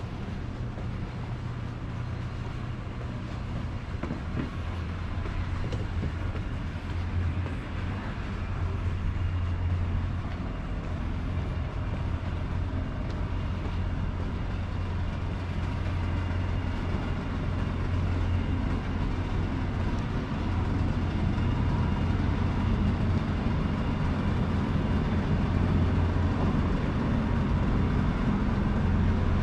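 Steady low rumble of city background noise, growing slowly louder.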